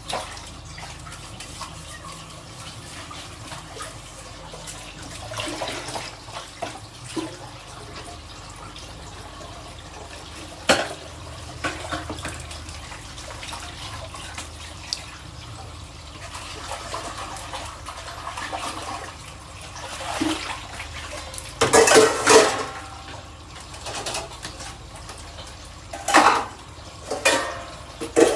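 Dishes being washed by hand at a sink: water runs steadily, with occasional clinks of dishes and louder bouts of clattering near the end.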